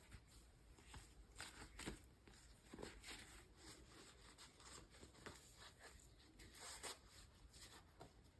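Faint rustling and light, irregular clicks of hands handling small toy packaging and pieces.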